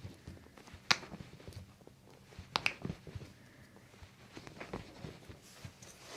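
Sharp joint cracks during a chiropractic adjustment: two distinct pops about a second and a half apart, the first about a second in, then a few fainter clicks later.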